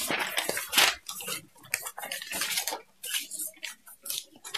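Loose sheets of graph paper rustling and crackling as they are handled and turned over in a record book, a quick run of short, irregular scratchy rustles.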